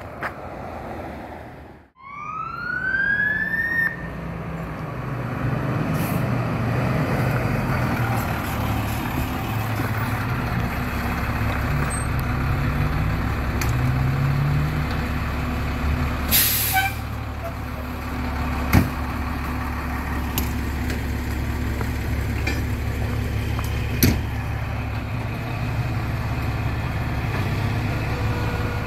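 Fire engine's diesel engine running close by, its pitch rising and falling a few times. A siren winds up briefly about two seconds in, and a short hiss of air sounds about halfway through.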